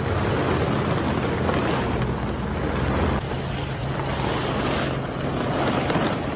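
Woodworking machinery running steadily: a loud rushing noise over a low motor hum, which shifts about three seconds in.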